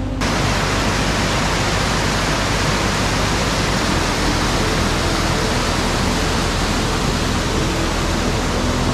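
A mountain stream cascading over rocks: a loud, steady rush of water that cuts in suddenly just after the start.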